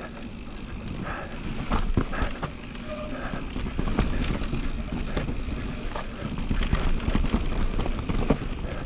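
Electric mountain bike's tyres rolling and slipping over snow and rock on a steep descent, with repeated knocks and rattles from the bike over the rough ground under a steady low rumble.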